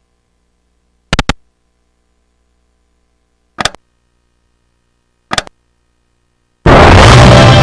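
Video slot machine game sounds: three short electronic clicks, a couple of seconds apart, as menu buttons are pressed. Near the end, a loud burst of game music starts as the next game loads.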